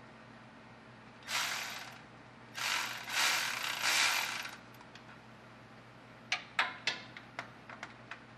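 Ratchet wrench clicking in two quick spells, then a run of single sharp clicks near the end, as the rear bolts of an automatic transmission's oil pan are backed off a little to let the pan tilt down and drain.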